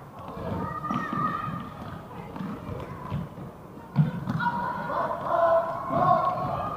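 A football kicked with a single thud about four seconds in, among voices calling out on the pitch.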